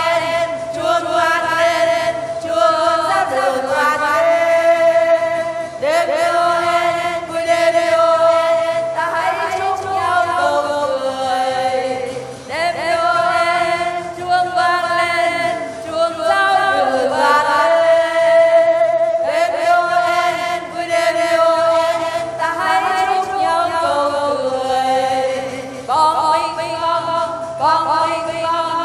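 Choir singing a Vietnamese Christmas carol with musical accompaniment, many notes held long.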